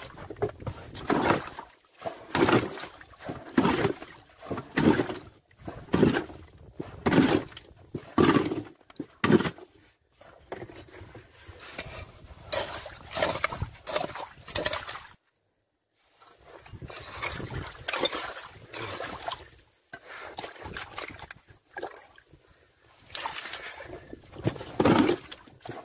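A small hand tool chopping and digging into wet sand and mud, about one stroke a second. Later it turns to weaker, irregular scraping and sloshing in muddy water while digging out sea worms for bait.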